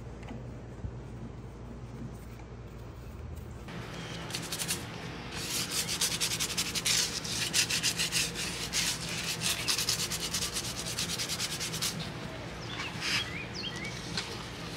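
Abrasive scrubbing on a metal part, many quick rubbing strokes over a low steady hum that starts about four seconds in, as lathe parts are cleaned up for restoration. A few short squeaks come near the end.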